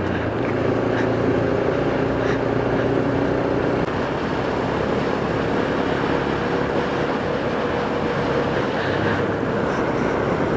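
Motorcycle engine running at a steady cruise while riding, under a continuous rush of wind and road noise.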